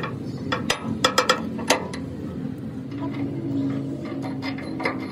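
Sharp metallic clicks and taps as a steel pin is fitted by hand into a tractor's axle beam: about six loud clicks in the first two seconds, then fainter, scattered ticks.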